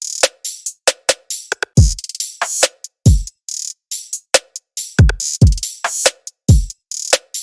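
A looping drum-machine beat: deep kick drums that drop in pitch, crisp hi-hat and snare hits, and short hits in the middle range, repeating in a steady pattern with silence between the strokes.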